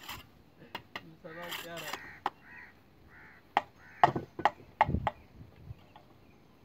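Irregular sharp wooden knocks as wooden battens are handled and knocked into place on a roof frame, with a quick run of them about four seconds in.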